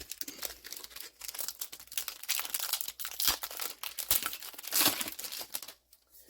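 A trading-card booster pack's foil wrapper being torn open and crinkled by hand, a busy run of crackling and rustling that peaks a little before five seconds in, then stops shortly before the end.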